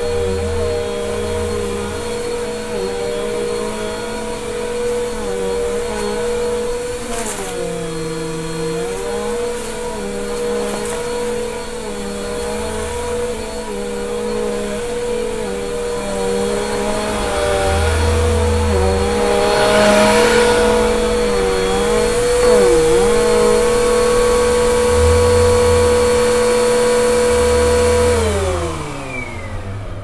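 Bissell PowerForce upright vacuum cleaner running on carpet with a steady motor whine, its pitch dipping briefly a few times. Near the end it is switched off and the motor winds down, its pitch falling away.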